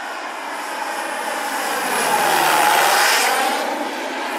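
Turbine-powered scale model BO-105 helicopter in flight: steady turbine and rotor noise that grows louder to a peak about two and a half seconds in as it passes, then eases off.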